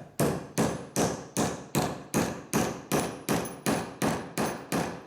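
Hammer knocking a wall plug into an aerated concrete block: a steady run of sharp blows, about two and a half a second.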